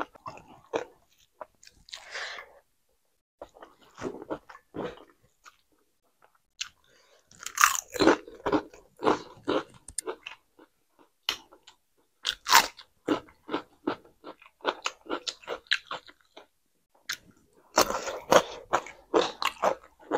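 Close-miked eating sounds of a person chewing mouthfuls of food, with crisp crunching and wet mouth clicks in bursts separated by short quiet gaps. The chewing is densest near the end.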